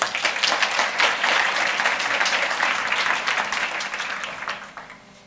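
Audience applauding, a dense clapping that dies away about four and a half seconds in.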